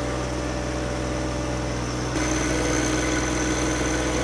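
John Deere 1025R compact tractor's three-cylinder diesel engine running steadily, heard from the operator's seat. About two seconds in the sound changes abruptly and a faint high whine joins it.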